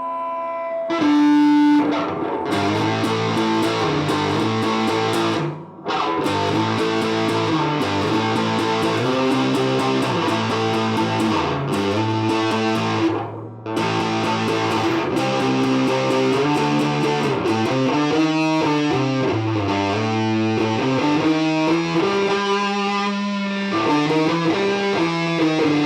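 Electric guitar played through a SIAM distortion pedal, a clone of the Pro Co RAT, into a transistor amplifier picked up by a dynamic microphone: distorted riffs and chords, with two short breaks about six and thirteen seconds in and quicker repeated notes near the end.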